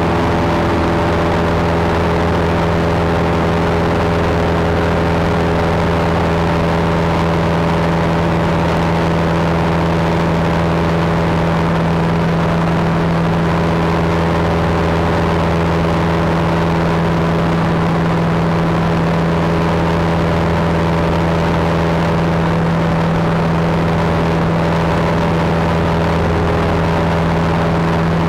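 Cessna single-engine piston airplane's engine and propeller running steadily in cruise, heard inside the cockpit: a constant drone at one unchanging pitch over a rush of air noise.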